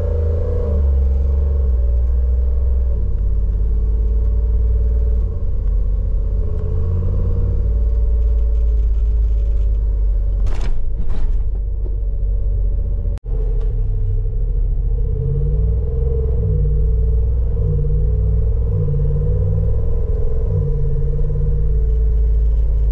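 Hemi V8 of a swapped Jeep Wrangler running steadily at low speed while the Jeep drives in low range through its 8HP70 automatic. A brief drop-out about thirteen seconds in.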